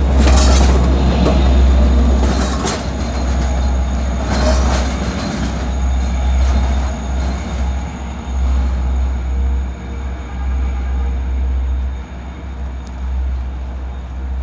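Long Island Rail Road bilevel passenger coaches passing close by, their wheels clattering and clicking over the rail joints for the first few seconds. The train's noise then fades away as it moves off, under a constant low rumble and a faint high steady whine.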